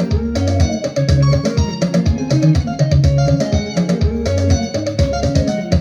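Instrumental gospel praise music from a band: guitars picking a quick melody over bass and drums with a steady beat.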